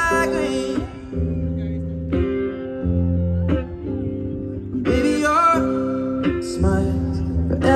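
Live concert music heard from within the audience: an amplified guitar carries an instrumental passage of the song over a steady bass, with a little singing.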